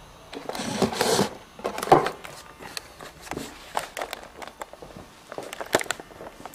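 Handling noise from a camcorder being picked up and carried: rustling of hands and clothing against the camera, a sharp knock about two seconds in, then scattered clicks and knocks as it moves.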